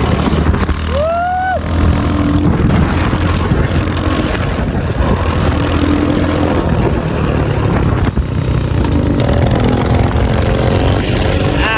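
Motorcycle running under way, its engine steady beneath a constant rush of noise. About a second in comes a short rising cry, like a voice.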